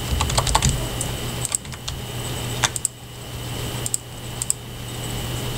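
Computer keyboard keys clicking in short scattered clusters, with a few single clicks in between, over a steady low hum.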